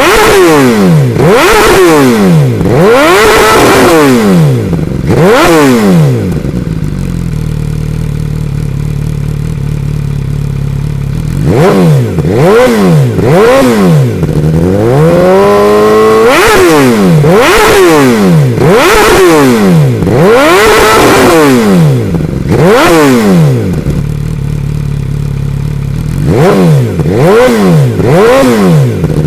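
2014 MV Agusta F4 RR's inline-four engine, warmed up, breathing through an SC-Project S1 exhaust. It is blipped in quick repeated revs, each rising and dropping back, and twice settles to a steady idle for a few seconds, about a quarter of the way in and again near the end, before the revving resumes.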